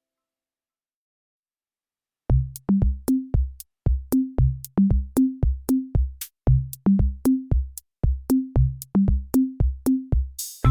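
Background electronic music: after about two seconds of silence, a drum-machine beat with kick drum, crisp hi-hat clicks and a bass line starts up and runs at a steady pulse.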